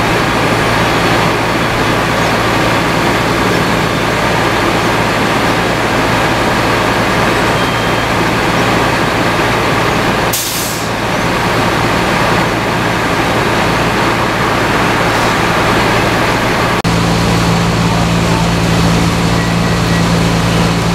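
Fire truck engine running steadily at the scene, a constant low hum under a loud noisy rush, with a short hiss about ten seconds in. About seventeen seconds in the sound changes abruptly to a stronger, steadier low drone.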